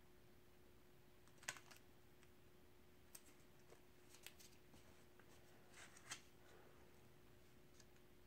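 Faint scattered clicks and rustles of paper stencil pieces being handled and lifted off a spray-painted poster board, over a steady low hum.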